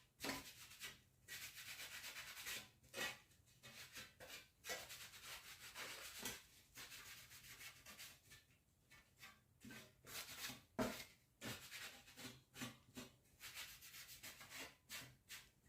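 Faint, irregular rubbing strokes of a fan blade being wiped clean, with a few light knocks as it is handled.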